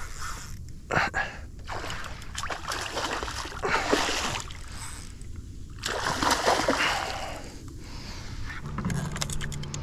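Hooked bluefish thrashing and splashing at the water's surface, in several separate bursts of splashing as it fights the line.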